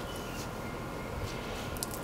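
Cloth rubbing and twisting inside the end of a copper pipe, wiping out the inside after brazing: faint, short swishes over a steady background hum.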